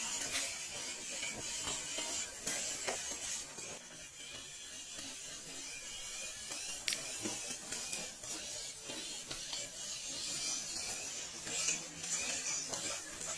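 Small 1/12-scale MN-91 RC rock crawler's electric motor and gearbox whirring as it crawls over rocks, with a scattering of clicks and ticks from the drivetrain and from tyres on stone.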